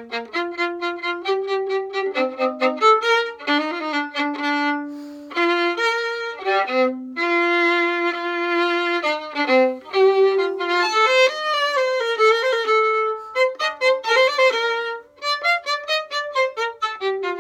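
Solo violin played with the bow: a melody of quick runs of short notes broken by longer held notes, some with vibrato, including one long sustained note about halfway through.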